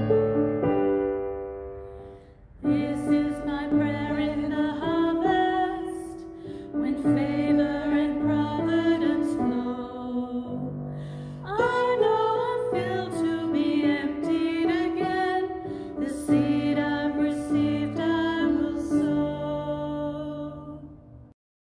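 Two women singing a song together, accompanied by piano. Piano alone at first, then the voices come in about two and a half seconds in; near the end the music fades and stops.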